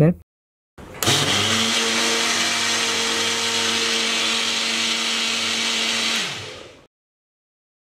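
Electric kitchen mixer-grinder starting up about a second in and running steadily with a high, even whine as it blends a thin flour-and-milk batter. It winds down and stops near the end.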